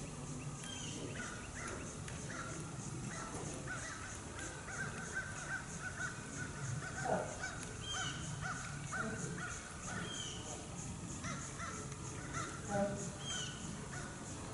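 Birds calling: scattered short calls and a few brief falling notes, over a fast, even, high-pitched chirping that repeats several times a second.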